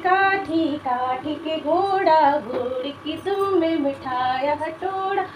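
A woman singing a children's tune in a sing-song voice: short phrases of held notes that glide up and down, with brief pauses between them.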